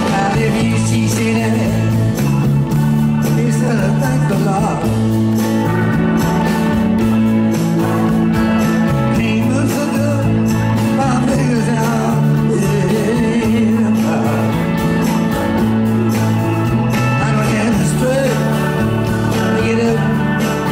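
Live band playing a song while a man sings lead, over a steady bass line.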